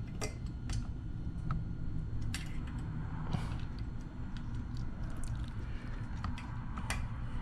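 Scattered light metal clicks and taps as a stiff 18 lb valve spring is pressed down and its retainer worked back onto the valve stem of a Predator 212 Hemi engine's cylinder head, over a low steady hum.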